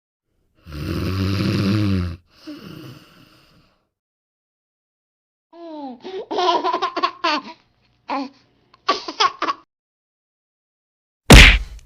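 A string of short comedy sound-effect clips with silence between them: a drawn-out sound about a second in, then a stretch of chopped, pitch-bending laughter, and a loud sudden hit near the end.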